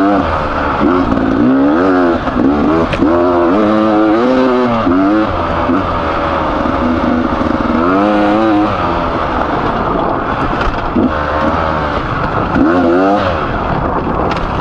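Beta 300RR two-stroke enduro engine, freshly rebuilt with a new piston and bearings, revving up and falling back again and again as the bike is ridden along a trail.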